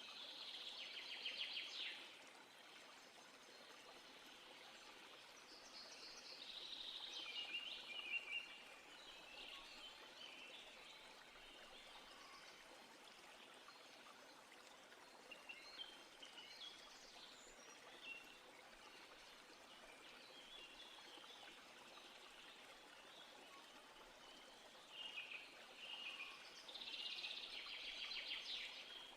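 Songbirds singing in bursts of rapid trills and chirps: one at the start, another a few seconds later, scattered calls through the middle, and a longer burst near the end. A faint, steady background hiss runs underneath.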